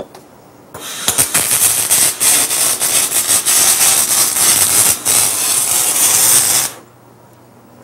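Electric arc welding on a steel tube frame: the arc's steady crackling sizzle starts about a second in, runs for about six seconds and cuts off sharply.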